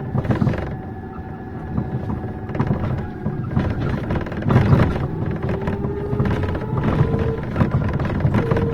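Inside a moving city bus: a steady low drive and road rumble with scattered rattles and knocks. From about five seconds in, a thin whine climbs slightly in pitch, then holds.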